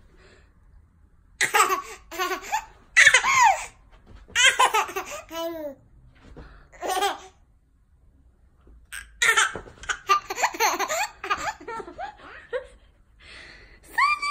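A baby laughing in a string of short bursts with brief pauses between them, dying away near the end.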